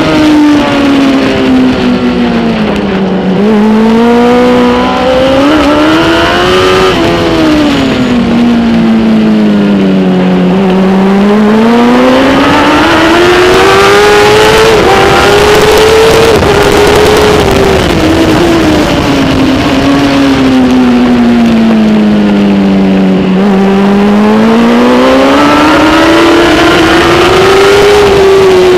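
Kawasaki ZX-10R superbike's inline-four engine at racing speed, heard onboard with wind rush. The revs drop and climb again in long sweeps, falling about 3 s in, again around 10 s and once more around 23 s, as the bike slows for corners and accelerates out of them.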